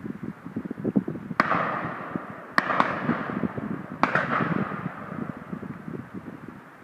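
Shotgun shots: four reports, the second and third close together, each followed by a fading echo, over steady low background noise.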